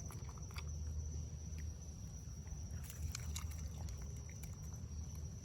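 Raccoon eating peaches: chewing and smacking heard as scattered small clicks over a steady low hum.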